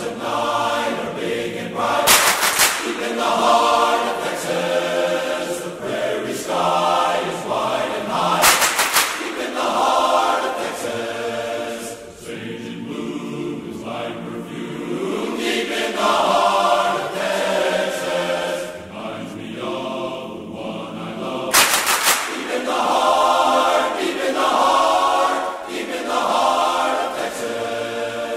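Large men's chorus singing a medley in close harmony, sustained chords rising and falling. Three sharp cracks cut through the singing, about two, eight and a half, and twenty-two seconds in.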